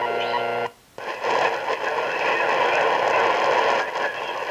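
Shortwave radio's speaker buzzing with a steady interference hum, then going silent for a moment as it is retuned and coming back as a dense hiss of static with a weak station under it. The owner blames the interference on a nearby cell tower.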